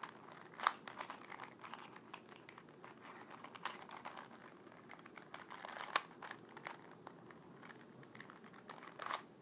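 Rubik's cube being turned by hand: quiet, irregular clicking of the plastic layers as they are rotated, with a couple of louder snaps.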